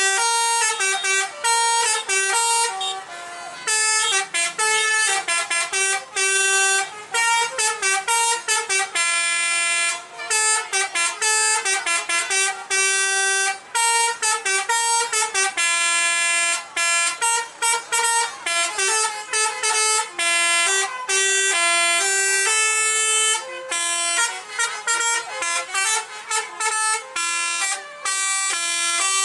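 Tour buses' telolet basuri horns playing fast melodic tunes in rapid stepping notes and short toots, several horns answering one another almost without a break.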